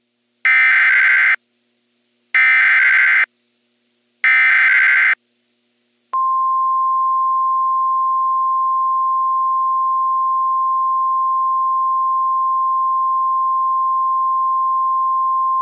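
Emergency Alert System SAME header: three short bursts of screeching digital data, each just under a second, then a single steady NOAA Weather Radio warning alarm tone that begins about six seconds in. Together they are the tones that open a weather warning broadcast and switch on alert receivers.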